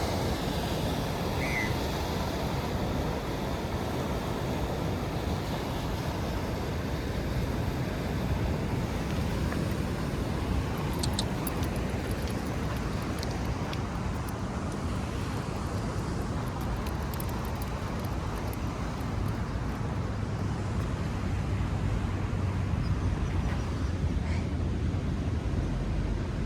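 Steady rumble of road traffic going past outdoors, with a few faint clicks in the middle.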